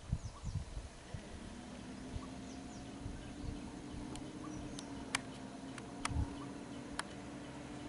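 Steady low hum of an idling vehicle engine, starting about a second in. Several sharp clicks come in the second half, with faint bird chirps.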